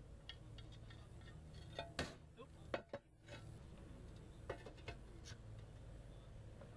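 Concrete roof tiles clacking and clinking against each other as they are handled and set in place, a few sharp knocks about two seconds in and two more near the five-second mark.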